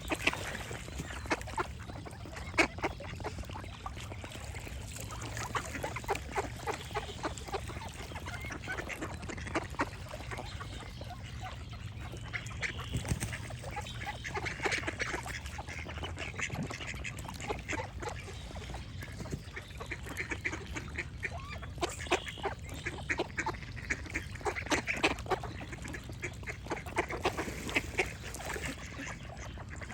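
Ducks quacking over and over in runs of short calls, with birds singing in the background.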